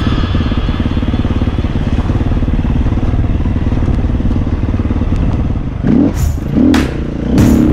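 KTM 350 Six Days dirt bike's single-cylinder four-stroke engine running as the bike rides along at a fairly steady pace. Near the end, a few sharp knocks and wavering low tones come in over it and are the loudest part.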